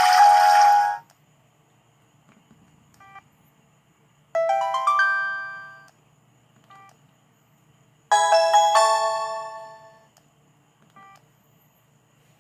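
ZTE Z222 phone ringtones: a busy tune cuts off about a second in. Then come two short chimes, each a quick rising run of bell-like notes that rings away over a second or two, with faint short beeps between them.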